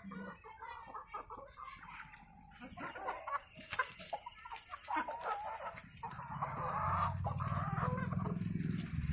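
Backyard chickens clucking, with scattered short clicks. A low steady hum comes in about six seconds in and is the loudest part.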